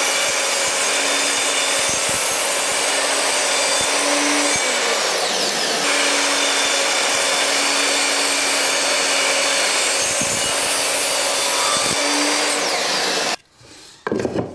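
Sliding mitre saw running and cutting through a timber skirting board to make a mitre cut: a loud, steady motor whine and blade noise that cuts off suddenly near the end.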